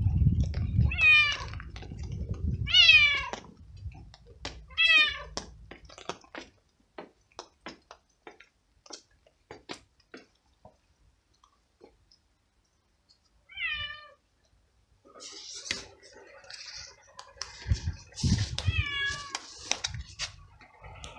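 Stray tabby cat meowing very loudly and over and over, each meow a falling cry: three in the first five seconds, one in the middle and a quick run of them near the end. The uploader puts the loud meowing down to the cat being hungry, cold and wet. Soft scattered clicks fall in the gaps between the meows.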